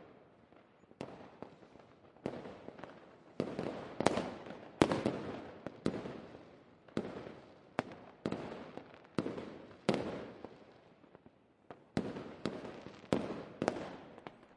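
Fireworks going off: a run of sharp bangs, about one or two a second, each trailing off in a crackling echo, with a short pause about eleven seconds in.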